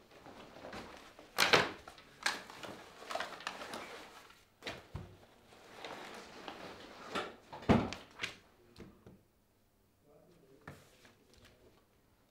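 Hasty rummaging through things on an office desk and in a bag: rustling and objects being shifted and knocked about, with two loud thumps, about a second and a half in and near eight seconds in. The handling dies down to faint small sounds in the last few seconds.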